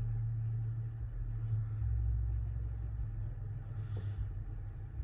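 A low, steady rumble that swells briefly about two seconds in, with one short click about four seconds in.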